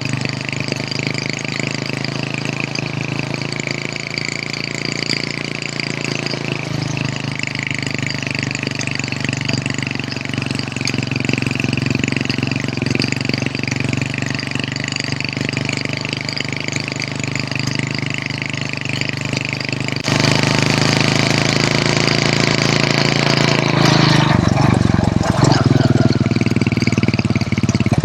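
Hero Honda CD100's small single-cylinder four-stroke engine running steadily. It gets louder about two-thirds of the way through, and near the end the pitch drops and climbs again.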